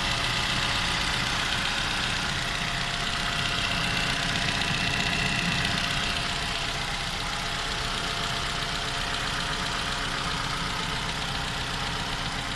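Toyota 2AR 2.5-litre four-cylinder engine idling with a steady knock. The owner says this knock is heard from cold and for the first ten minutes of running, at 16,500 km.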